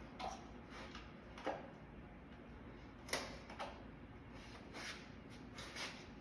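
Scattered light clicks and knocks of tools and metal parts being handled while an air-conditioning unit is taken apart, about eight irregularly spaced strikes.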